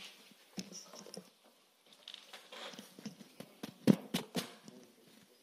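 Tabletop gooseneck microphone being handled: scattered light clicks and rustles, then a sharp loud bump about four seconds in and a smaller one just after.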